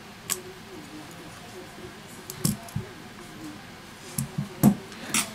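Metal tweezers clicking on a disassembled smartphone's internals, and the opened phone being handled on a silicone repair mat. A scattered handful of small clicks and soft knocks, the loudest near the end.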